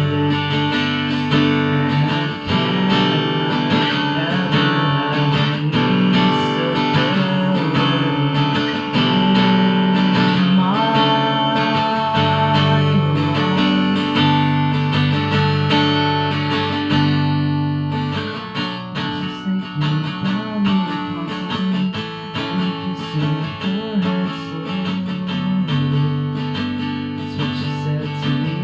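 Acoustic guitar played solo in an instrumental passage, picked and strummed; about two-thirds of the way in the playing turns choppier and more rhythmic.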